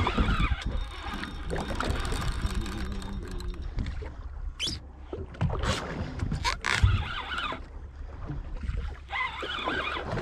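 Wind and water noise aboard a small fishing boat at sea over a low steady rumble, with a few sharp knocks a little after the middle.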